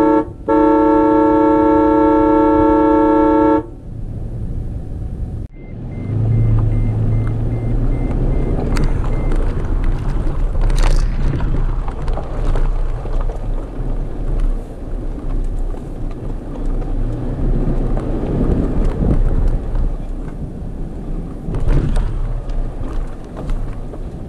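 Toyota FJ Cruiser's horn: a brief toot, then one long blast of about three seconds that cuts off suddenly. After a short pause the vehicle moves off, its engine running and tyres rolling over a rocky dirt trail.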